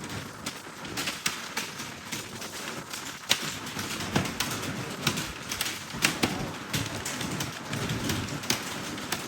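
Computer keyboard being typed on: irregular key clicks, about two or three a second, at a steady practice pace.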